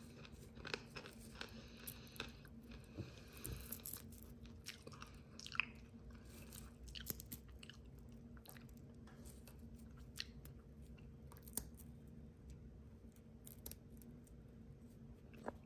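Someone chewing pieces of dry, home-dehydrated crunchy beef: quiet, irregular crisp crackles and crunches.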